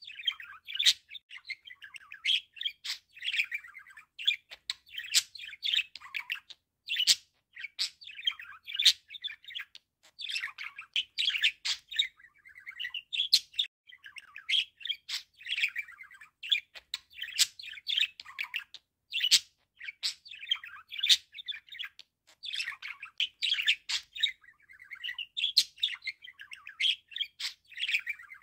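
Budgerigar warbling: a continuous chattering song of rapid chirps and sharp clicks, broken by short pauses every few seconds.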